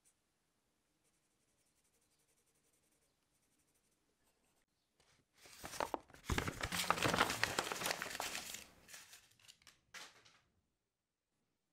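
Faint scratching of a pencil on paper, then, about five seconds in, a sheet of drawing paper being handled roughly: loud crackling and rustling of paper that dies away after about five seconds.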